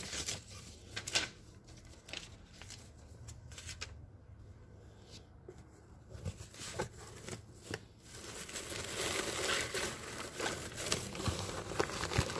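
Shredded-paper packing rustling and crinkling in a cardboard box as hands dig through it: a few light scattered taps and crinkles at first, turning into steady, louder rustling about two-thirds of the way in.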